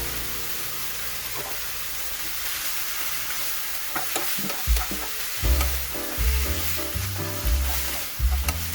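Food sizzling in a frying pan as it is stirred, with a few sharp clicks of the utensil against the pan.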